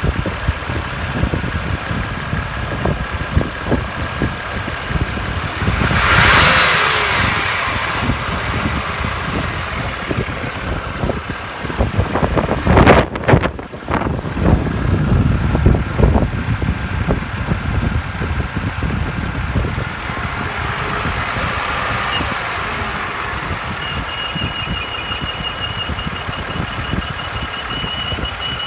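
Car engine running with a high whistle. A surge of hissing noise comes about six seconds in, a few loud knocks about halfway, and a thin steady whistle sets in near the end.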